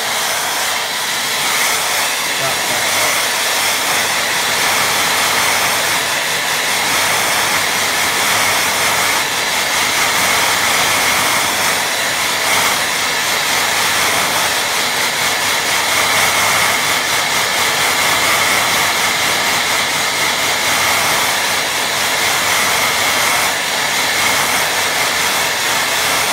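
Hair dryer blowing steadily over a watercolour painting, drying the wet paint.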